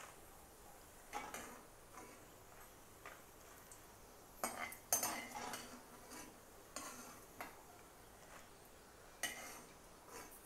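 Metal ladle scraping and clinking against a kadai as fried dried red chillies are scooped out of the oil, in a few short bursts with the loudest about five seconds in.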